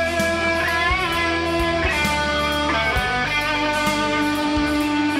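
Electric guitar solo played through a Marshall JCM 800 head driving a half stack: single sustained lead notes, with a string bend rising in pitch about a second in and a long held note near the end.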